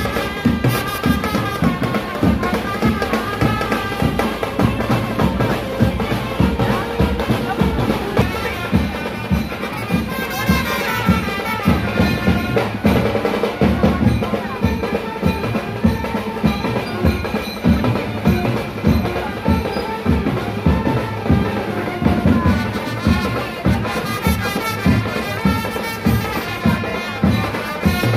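Street brass band playing upbeat dance music, with trumpets over heavy drums beating a steady rhythm.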